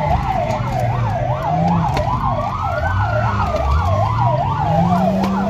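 Police sirens: one in a fast yelp, about three to four swoops a second, overlapping a second in a slow wail that rises and falls. Under them a car engine runs, its pitch climbing through the second half as it accelerates.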